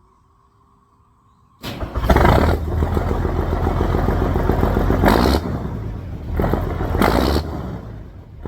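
M35A2 deuce-and-a-half's multifuel diesel engine running. It comes in abruptly about a second and a half in, surges louder several times, and eases off near the end.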